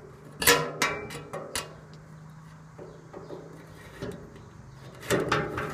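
Metal server-rack rail of a Norco RL-26 rail kit being slid onto its mounted rear bracket. Sharp metal clicks and knocks come about half a second in, lighter scraping follows, and a louder clatter comes near the end. A steady low hum sits underneath.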